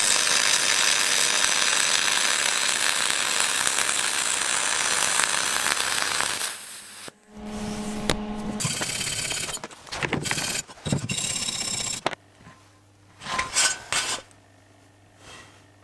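MIG welding arc on aluminium, 1 mm aluminium wire laying a fillet weld on 2 mm aluminium: a steady hiss that runs for about six and a half seconds and then stops. Afterwards there are a few shorter, quieter noises and light knocks.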